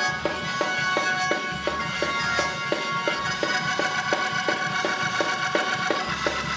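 Church praise music: held keyboard chords over a drum kit keeping a quick, even beat of about three strokes a second, with a low bass note coming in near the end.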